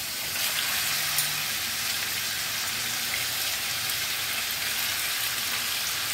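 Raw chicken mince sizzling as it is dropped into hot vegetable oil in a pan. The sizzle swells a little about half a second in, then holds steady.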